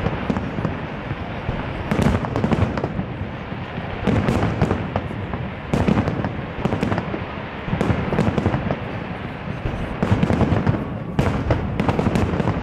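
Volley fireworks salute: aerial shells bursting in loud volleys a couple of seconds apart, with a dense spatter of sharp pops between them.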